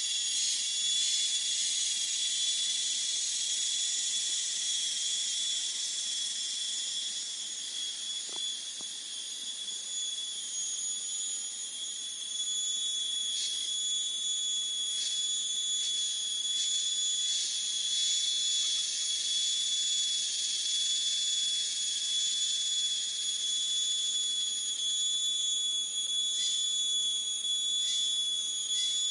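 Chorus of forest insects such as crickets: a steady, shrill, high-pitched trill that holds one pitch throughout, with short pulsing calls joining in around the middle.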